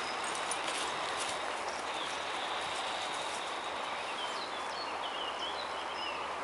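Steady outdoor background hiss, with a few short bird chirps in the second half.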